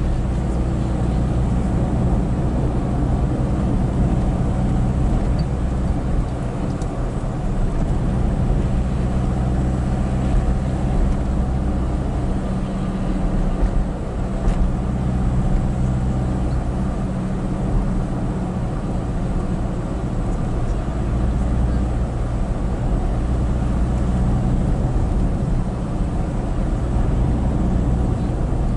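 Steady engine hum with tyre and road noise, heard from inside the cabin of a moving vehicle on a wet road, with a few faint rattles.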